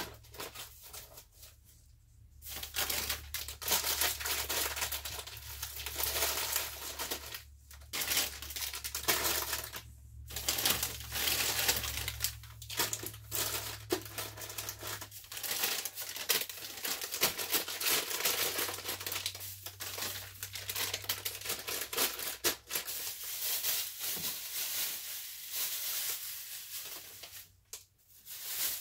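Plastic wrappers and bags crinkling and rustling as wrapped goods are handled and pressed into a cardboard box, in irregular handfuls with short pauses between them.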